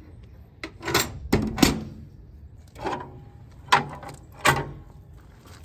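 Steel door and latch of a TMG Pits smoker clanking shut, then a series of sharp metal knocks and clunks.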